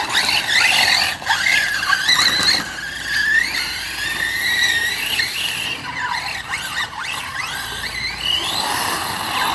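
Two large-scale electric RC off-road trucks running hard on dirt, their motors and drivetrains whining high, the pitch rising and falling as they accelerate and ease off.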